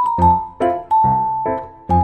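Background music: a melody of short struck notes over lower notes, a few notes a second.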